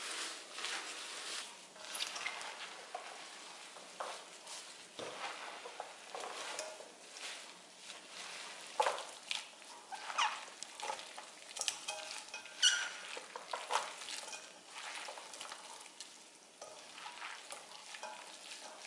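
Gloved hands tossing and mixing perilla leaf shoots with a wet chili-and-soy seasoning in a stainless steel bowl. It is a soft wet rustling, full of irregular sticky clicks and squishes, busier and louder in the middle.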